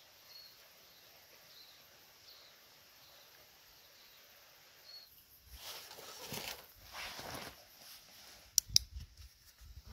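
Quiet forest ambience with a few faint, short, high bird chirps. About halfway in, a hiker's footsteps and backpack rustling start, with two sharp clicks near the end.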